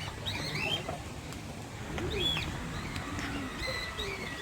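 A mix of birds calling together: many short chirps and whistles overlapping, with a few low coos among them.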